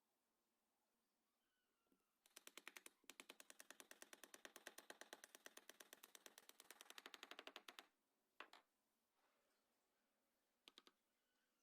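A rapid, even rattle of sharp clicks, about a dozen a second, lasting about five and a half seconds with a brief break near the start, followed by a single click and later a quick double click.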